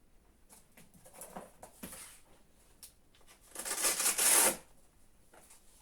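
Manual blood pressure cuff and stethoscope being handled: soft scattered rustles and clicks, then a loud rasp lasting about a second, two thirds of the way through.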